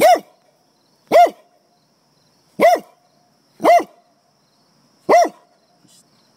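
A dog barking five times, single barks spaced about a second or so apart, each rising and then falling in pitch.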